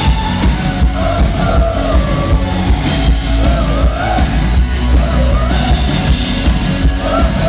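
Pop-rock band playing live, loud, with drums, bass and electric guitar under a woman's lead vocal, heard from within the audience in a large hall.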